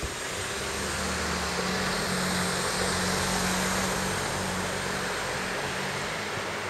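A Sanyo Electric Railway train passing on the elevated viaduct overhead: a rushing rumble with a low steady hum that swells to its loudest a couple of seconds in, then slowly fades.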